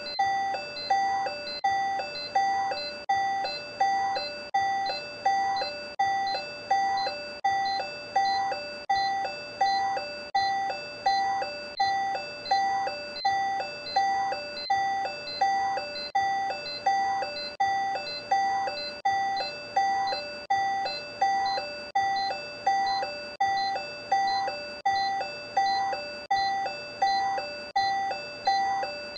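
Simulated cardiac monitor sounding its pulse beep with each heartbeat: a short electronic tone repeating evenly at about two beeps a second, matching a heart rate of 118.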